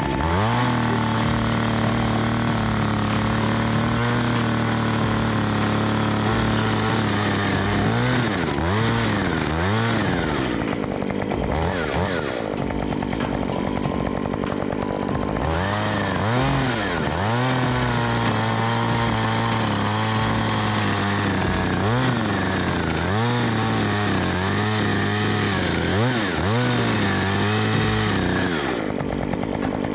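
STIHL MS 194 TC top-handle chainsaw's two-stroke engine running, holding a steady speed for stretches and repeatedly revving up and dropping back.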